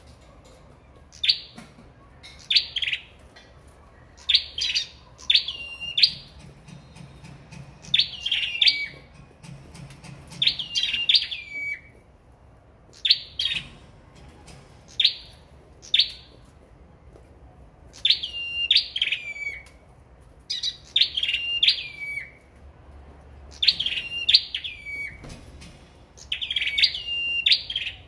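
Caged 'sâu đầu đỏ' (red-headed) songbirds singing against each other in contest: short, high, sharp chirpy phrases with quick pitch sweeps, repeated every second or two in bursts with brief pauses between.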